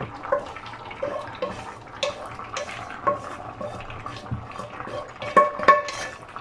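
A wooden spatula scraping and knocking cabbage out of a frying pan into a larger pan, the pan ringing briefly at each knock, with two louder knocks near the end.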